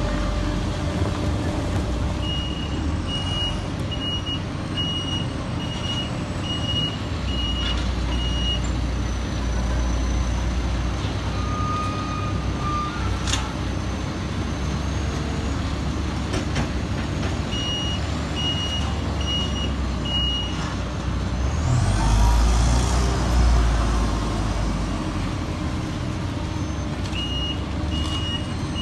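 Diesel engines of heavy road-paving machinery running steadily, with a backup alarm beeping at an even pace in three spells. About three-quarters of the way through the engine noise swells and a high whine rises.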